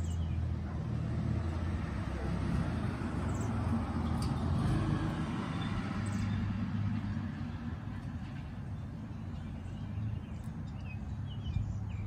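Low, steady hum of a motor vehicle's engine, growing louder about four to six seconds in and then easing off, like a vehicle passing. A few faint bird chirps come in near the end.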